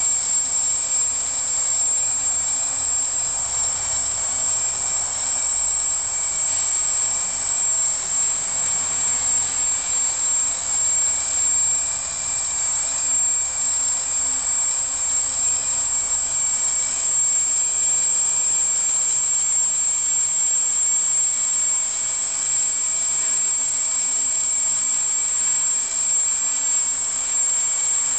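Electric multirotor's motors and propellers whining steadily as it hovers in altitude hold, a high drone whose pitch wavers slightly as the throttle is trimmed.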